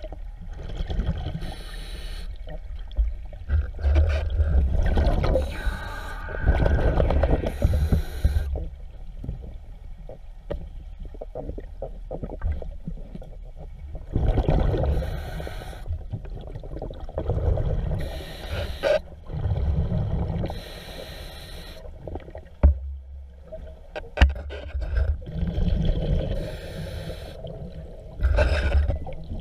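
A diver breathing through a demand regulator underwater: several breaths, each a hiss of inhaled air followed by a low bubbling rumble as the exhaled air escapes.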